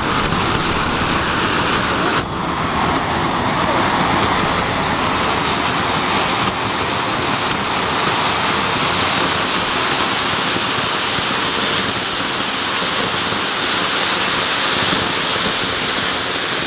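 Large Cock-brand anar (flower-pot fountain firework) burning, with a steady rushing hiss as it sprays sparks. The hiss briefly dips about two seconds in.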